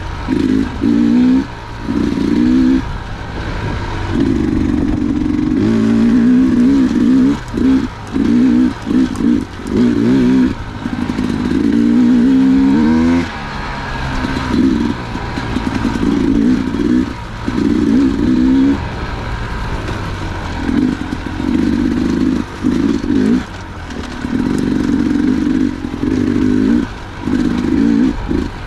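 Dirt bike engine pulling along a trail, the throttle opening and closing so the engine note swells and cuts back every second or two, with a couple of revs rising and falling about halfway through.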